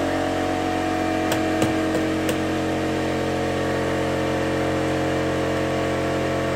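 Electric air compressor running steadily, a constant motor drone, as it builds tank pressure back up for the pneumatic nail gun. A few light clicks come between one and two and a half seconds in.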